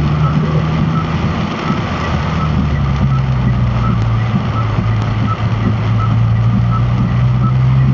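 Heavy rain beating steadily on a car's roof and windscreen, heard from inside the cabin over the car's steady low engine hum.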